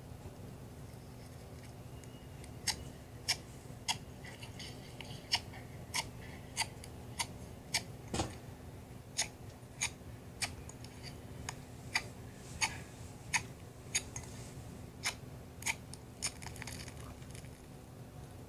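Slime being played with, giving a steady series of sharp clicking pops, about twenty in all, with a brief soft crackle near the end.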